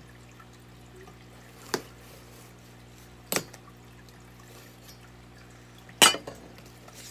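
A large knife slitting the packing tape along the seam of a cardboard box, with three sharp clicks and knocks of blade and cardboard; the last, near the end, is the loudest. Under it runs the steady hum and water trickle of an aquarium's filter.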